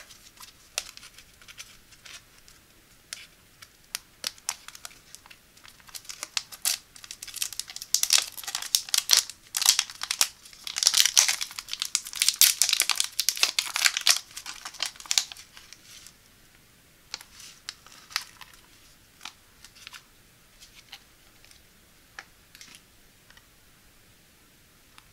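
Foil sachet crinkling and tearing as it is peeled open by hand, with scattered crinkles at first and then dense, loud crinkling and tearing through the middle. Near the end only a few light crinkles and clicks remain as the clear plastic tray of gel eye patches is handled.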